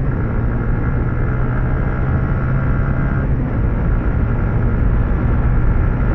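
Yamaha Sniper 150 motorcycle engine running at a steady pitch under a rush of wind and road noise, the engine note shifting slightly about three seconds in.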